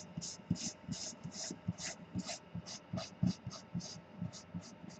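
Eraser rubbing back and forth on paper in quick strokes, about three a second, scrubbing out light pencil construction marks.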